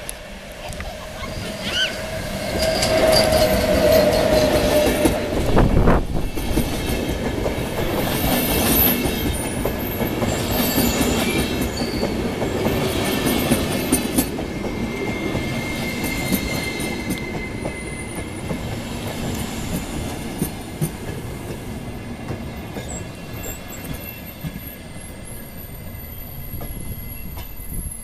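A VR Class Sr2 electric locomotive and double-deck InterCity2 coaches roll past close by as the train slows into the station. The wheels clatter over the rails and the brakes and wheels give high-pitched squeals. It is loudest a few seconds in as the locomotive passes, then the coaches run by more quietly.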